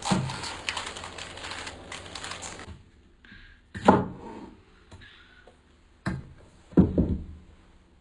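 Kitchen knife cutting cabbage on a wooden cutting board: a quick run of crunchy cuts for the first few seconds, then three separate sharper knocks of the blade on the board.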